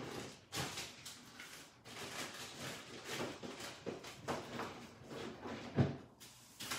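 Irregular clicks, knocks and rustling of things being handled and moved about in a kitchen, with one heavier thump near six seconds.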